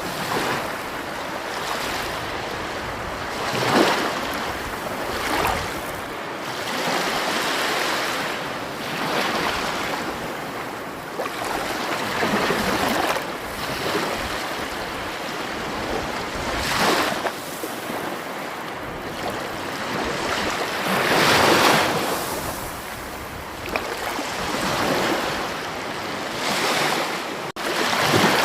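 Sea waves washing onto a shore: a steady rushing wash that swells louder each time a wave breaks, every few seconds.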